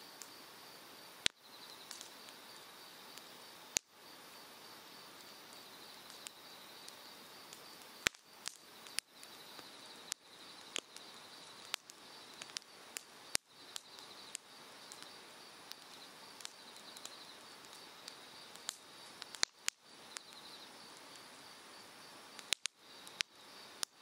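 Cedar firewood burning on an open ground fire, crackling with irregular sharp pops. A stream rushes steadily underneath, and insects trill faintly.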